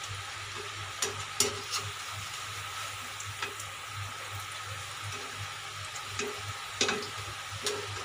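Onion pakoras deep-frying in hot oil in a kadai, a steady sizzle, with a few sharp clicks and scrapes of a steel wire skimmer against the pan, the loudest about one and a half seconds in and near seven seconds.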